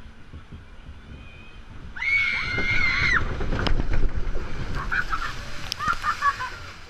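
Water flume ride boat plunging into its water channel: a rider's high scream, held about a second, starts about two seconds in as the boat drops. Then comes a loud rush of splashing, sloshing water, followed by short excited cries.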